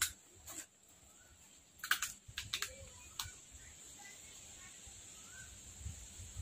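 Quiet outdoor ambience: faint short bird chirps over a steady high insect drone, broken by a few sharp clicks and crackles, the loudest at the very start and around two seconds in.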